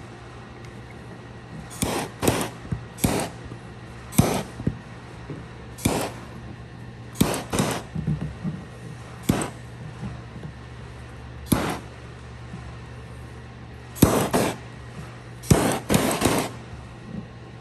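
Sharp knocks and taps at irregular intervals, some single and some in quick clusters of two or three, over a steady low hum.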